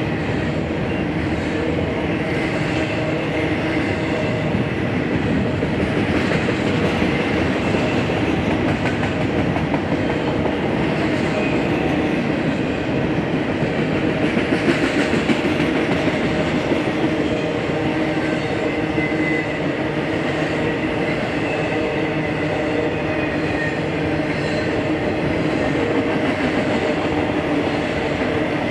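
BNSF freight train rolling past, a steady, continuous run of wheel-on-rail noise from its cars.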